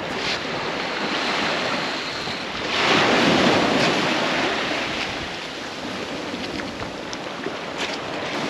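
Ocean surf washing against the shore, with one louder wave surge about three seconds in, and wind buffeting the microphone.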